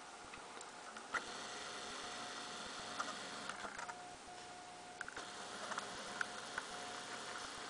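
Faint steady hiss with a thin steady tone that breaks off now and then, and scattered small clicks and taps: handling noise from a handheld camera being zoomed out and back in.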